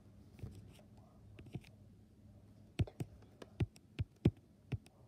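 Fingers squeezing and tapping a foam squishy toy close to the microphone: faint handling rustle, then a run of about six short clicks and taps in the second half.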